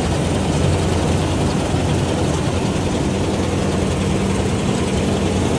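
Kartar combine harvester running steadily at working speed with its engine hum under a dense mechanical clatter and hiss, while its unloading auger discharges threshed rice into a trolley.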